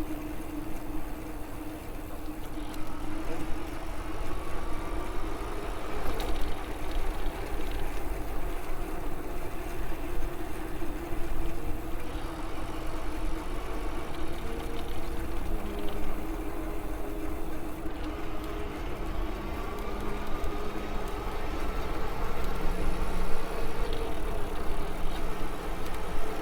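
An MS2 Dual Sport Ultra electric bike being ridden: a steady motor whine that shifts in pitch now and then, over a constant low rumble of wind and tyres.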